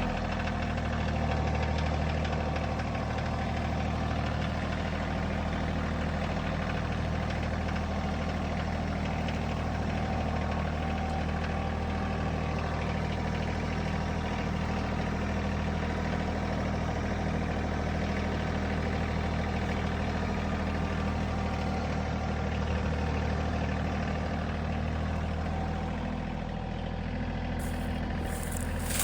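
An engine, likely from machinery at the job, idling steadily at an even pitch. Shortly before the end, a new sound with much more treble comes in.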